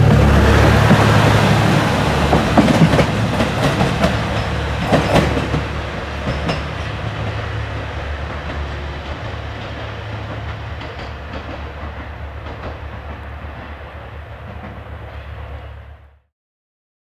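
A train running on rails: a steady low drone with a few sharp wheel clicks, fading gradually, then cutting off suddenly near the end.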